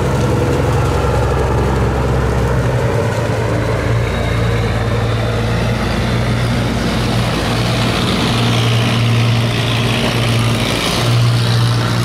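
Large diesel engine of a steel cargo barge running steadily at cruising speed as it passes close by, a deep even hum. A rush of wash water joins it in the second half.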